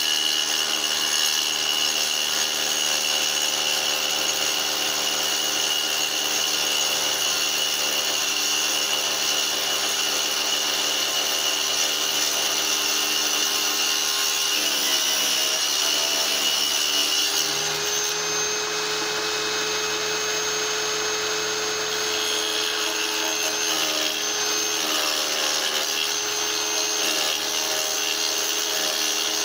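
Tile saw running steadily, its blade cutting a small piece of petrified wood. About halfway through, the motor's pitch dips and then settles at a new steady note as the load on the blade changes.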